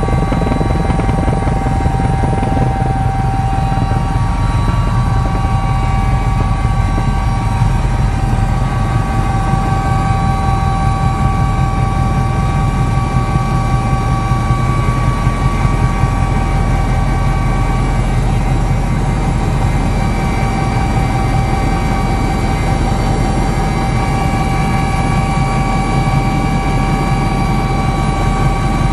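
Fisheries-patrol helicopter in flight, heard from inside the cabin: a loud, steady drone of rotor and engines with several constant whining tones above it.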